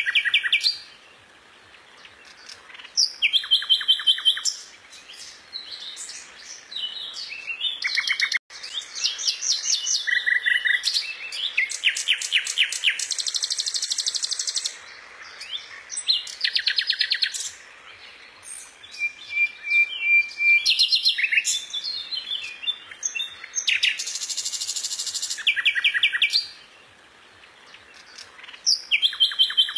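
A small songbird singing in bursts of fast trills and repeated high chirps, its phrases broken by short pauses.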